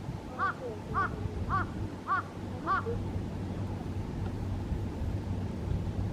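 A crow cawing five times in an even series, about two caws a second, over a steady low wind rumble.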